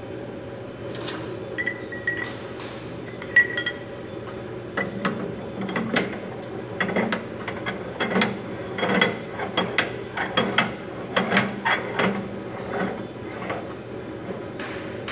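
Metal parts of a commercial pasta extruder's die and cutter assembly clinking and knocking as they are handled, a rapid irregular run of clicks, over a steady hum.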